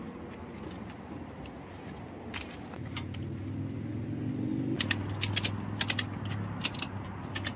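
Ratchet strap being cranked tight: sharp metal clicks from the ratchet mechanism, a few at first and then in quick bunches in the second half, over the steady low hum of a vehicle engine.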